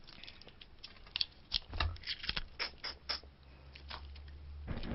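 Cooked snow crab shells being snapped and picked apart by hand: a run of small, sharp clicks and cracks in the middle, with a few more near the end.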